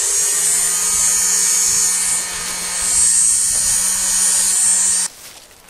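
Small high-speed power tool running steadily as it grinds into the steel chainsaw bar to extend the bar's oil port, with a loud grinding hiss. It stops abruptly about five seconds in.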